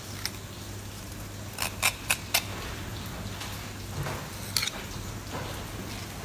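Fillet knife cutting a fillet off a flatfish, with a quick run of four sharp clicks about a second and a half in and another a little after four seconds, over a steady low hum.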